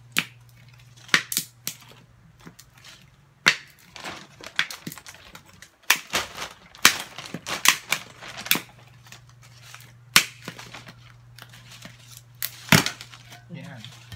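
Sharp, irregular snaps and cracks as the lid of a homemade can coin bank is worked loose and pried open by hand, with a low steady hum underneath.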